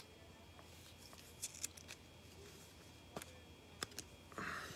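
Faint handling noise of trading cards and a hard plastic card holder: a few light clicks spread through, and a short soft rustle near the end.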